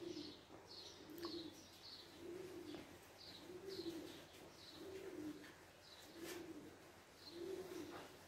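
Faint pigeon cooing: a soft, low coo repeated about once a second. Small birds chirp higher up between the coos.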